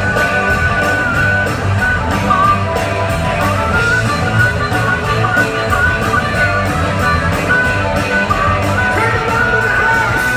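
Live rock band playing at a fast, steady beat, with drums, electric guitars and a singing voice, heard from the audience in a concert hall.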